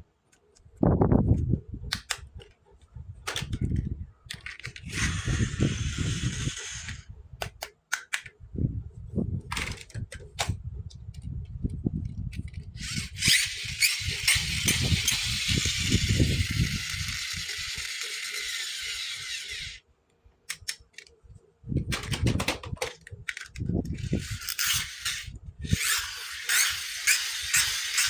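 Hands unboxing and handling plastic toys and their packaging: many sharp clicks and taps with dull knocks, and two long stretches of rustling that stop abruptly, one about five seconds in and a longer one around the middle.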